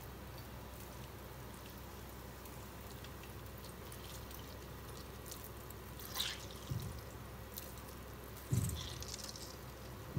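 Hands squeezing grated raw mango, the juice squelching and dripping into a steel bowl: mostly quiet at first, then a few soft squishes and drips from about six seconds in.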